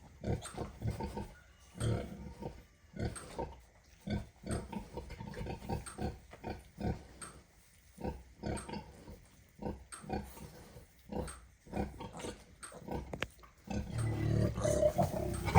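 Pigs in a barn pen grunting in short, low grunts, one every half second to a second. Near the end a louder, longer pig sound builds up.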